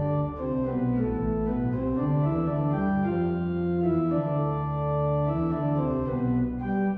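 Pipe organ playing held chords with several moving lines over a deep pedal bass.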